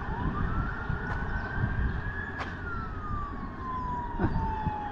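Emergency vehicle siren on a slow wail: the pitch climbs for about two seconds, falls slowly back down, and starts climbing again near the end. A low rumble runs underneath, with a few short clicks.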